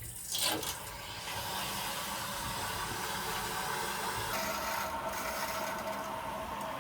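Water rushing through the supply piping into a newly installed, empty tank water heater as it fills: a steady hiss, with a faint whistling tone joining about four seconds in.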